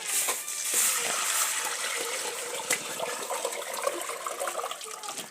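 Water pouring and splashing into a sufuria, a metal cooking pot, to be boiled; it cuts off suddenly near the end.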